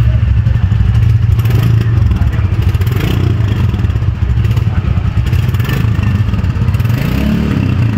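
Exhaust of a Royal Enfield Bullet 350's 349 cc single-cylinder J-series engine, running steadily with a dense low pulse.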